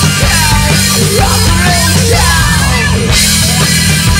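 Rockabilly-punk band playing loud live: drums, bass and electric guitar over a dense low end, with sliding high notes and a cymbal crash about three seconds in.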